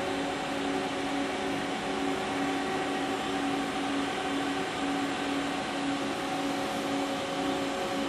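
Haas SL-30T CNC lathe running under power: a steady machine hum with several steady tones that waver slightly in level.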